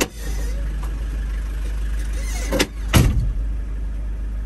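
Cabin noise of a 1998 Fiat Ducato camper on the move: a steady low engine and road rumble, with two sharp knocks about two and a half and three seconds in.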